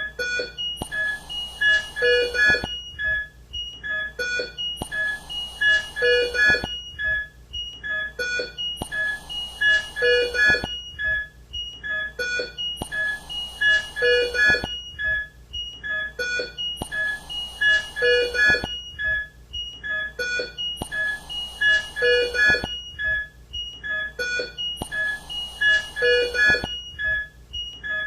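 ICU bedside sounds: a patient monitor beeping over and over in short pitched tones, with a mechanical ventilator cycling and hissing with air about every four seconds.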